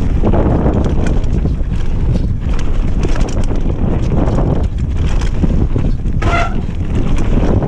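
Mountain bike descending a rough dirt trail at speed: wind buffeting the microphone over the rumble of tyres on dirt and the rattle of the bike over bumps, with a brief squeal about six seconds in.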